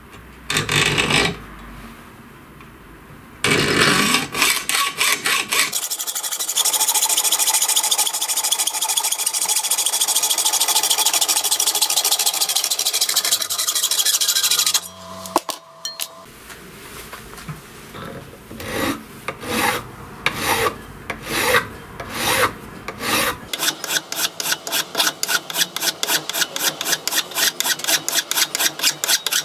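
A hacksaw blade sawing through a thin brass strip in quick back-and-forth strokes. In the last several seconds a flat metal file rasps across the cut brass edge in steady strokes, about two or three a second.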